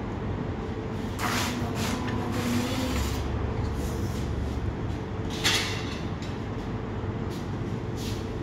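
A few short scraping, clattering sounds as a metal pizza peel takes a pizza out of the oven and slides it onto a wire cooling rack, the loudest about five and a half seconds in, over a steady low hum.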